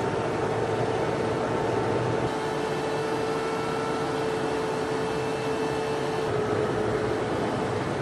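Steady rushing airflow and engine drone inside a KC-10 tanker's boom operator station, with a faint hum whose pitch shifts slightly twice.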